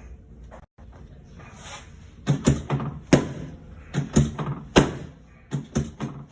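A quick, uneven run of about ten sharp knocks and thuds, starting about two seconds in after a quiet start, some in close pairs.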